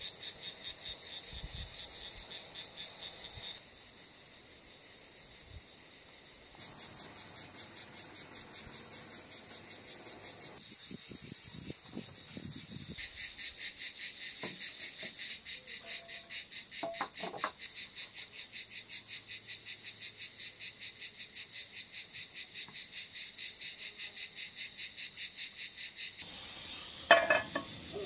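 Insects chirping steadily outdoors, in a rapid pulsing rhythm of about four pulses a second. Near the end comes one sharp clack, the loudest sound, as a frying pan is set on a portable gas burner.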